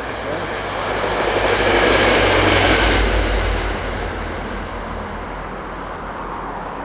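Passenger train passing by: a rushing rumble that swells to its loudest about two to three seconds in, then fades away.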